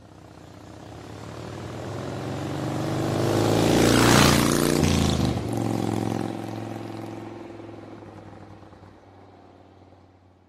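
Engine of a passing vehicle: its steady note grows over about four seconds to a loud rush, then falls away and fades out.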